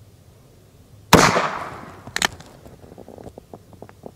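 One shot from a Ruger Single Six single-action .22 revolver about a second in, its report ringing away for most of a second, then a second sharp crack a second later. Near the end come a few light metallic clicks as the hammer is cocked for the next shot.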